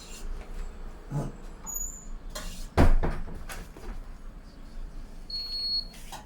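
Refrigerator door and contents being handled: scattered knocks and rattles, with one loud thump about three seconds in. Near the end the fridge's open-door alarm starts beeping with a high, steady tone, the sign that the door has been left open too long.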